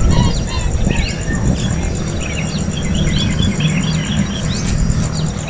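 Small birds giving many quick, short chirps over a steady low rumble, with a faint, even, high pulsing tone behind them.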